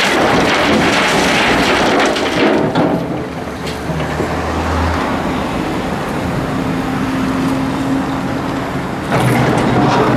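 Volvo EC480D excavator working, its diesel engine and hydraulics running under load. A loud rattling, rushing noise of the bucket working through dirt and crushed concrete fills the first few seconds, gives way to steady engine sound, and returns about nine seconds in.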